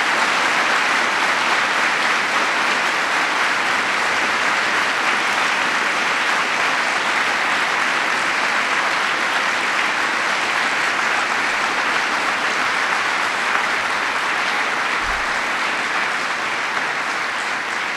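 A large indoor audience applauding steadily, easing off slightly near the end.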